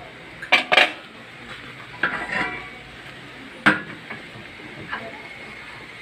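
Aluminium pan lid clanking against the pan as it is lifted off with a cloth: two sharp metallic clanks about half a second in, a rattle around two seconds, and another sharp clank near four seconds.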